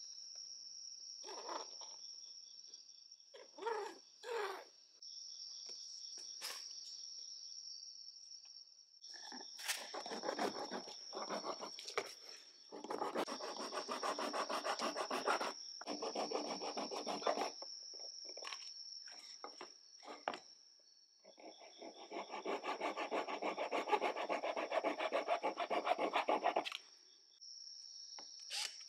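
Small hand saw cutting through a plastic mud flap in two long spells of rapid back-and-forth strokes, with a pause between them; a few short scratches of a pen marking the cut line come first. A steady high insect trill sounds throughout.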